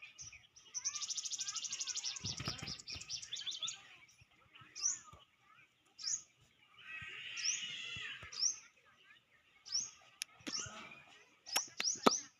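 Small birds chirping: a quick, dense chatter at first, then short, high, upswept chirps repeated every second or so. There is a brief low rustle about two seconds in and a few sharp clicks near the end.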